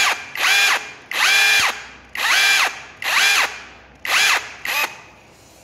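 Compact brushless cordless hammer drill in plain drill mode, running with no load and triggered on and off in about six short bursts. Each burst is a whine that rises as the motor spins up and falls as it coasts down.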